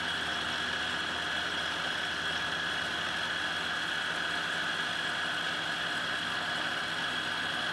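Benchtop milling machine running, its end mill cutting steel rebar as the table feeds the bar past the cutter: a steady machine whine with high tones.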